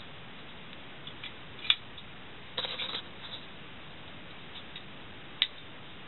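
Two sharp clicks nearly four seconds apart, with a short rattling clatter between them and a few faint ticks, over a steady hiss.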